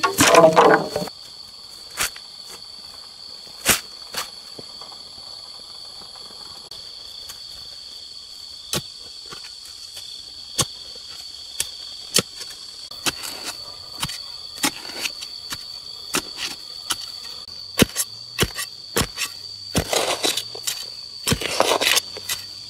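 Insects chirring steadily at a high pitch, with scattered sharp knocks and taps throughout and a few short rustling or scraping spells, the first at the very start and the others near the end.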